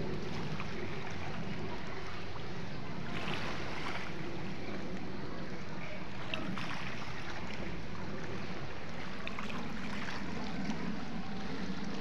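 Wind on the microphone and gentle waves lapping at a rocky shore, a steady hiss with a few soft swells.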